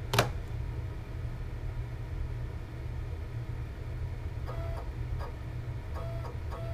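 Steady low hum with a sharp click just after the start. From about four and a half seconds, the Kudo3D Titan 1 resin printer's Z-axis stepper motor whines in several short moves, each under a second and gliding in and out of pitch, as the build platform steps during calibration.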